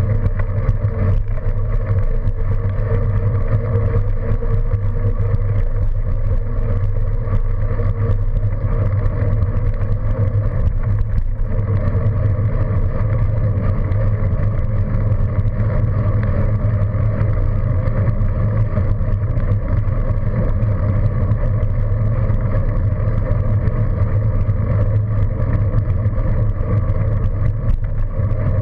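Steady, unchanging drone of travel along a road from a camera mounted low on the moving vehicle: road and wind noise over a constant low hum.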